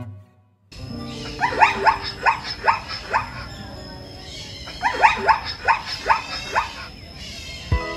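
Two bouts of rapid, short yapping calls from an animal, about five a second, after a brief silence at the start, over steady background music.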